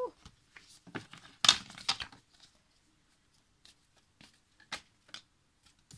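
Oracle cards being handled and shuffled on a table: quick papery rustles about one and a half to two seconds in, then a few scattered light taps and slides of card.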